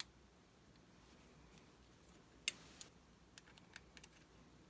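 Small sharp metal clicks from an Allen key working the set screws on top of an air rifle's action: one loud click about two and a half seconds in, another just after, then a few faint ticks.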